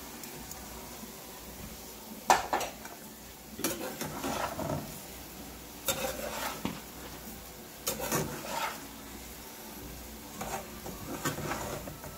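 Metal spoon stirring and scraping raw rice through chicken and vegetables in a hot metal pot, in irregular strokes every couple of seconds, over a faint sizzle.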